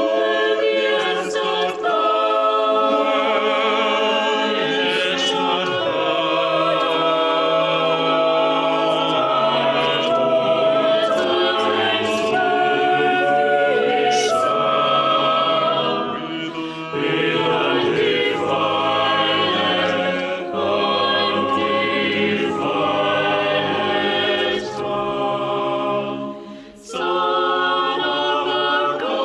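Church choir singing, many voices in sustained chords. The singing starts suddenly and has a few short breaks between phrases, the clearest near the end.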